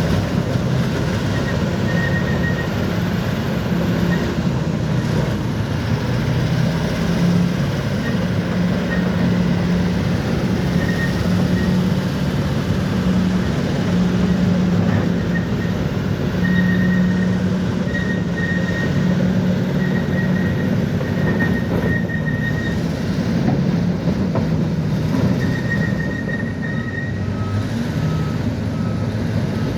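Bulldozer's diesel engine running steadily with a low drone, with short high beeps coming and going and a run of evenly spaced beeps near the end.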